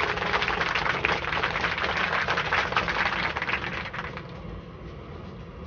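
Food sizzling and crackling in a hot pan, a dense crackle that stops abruptly about four seconds in, over a steady low hum.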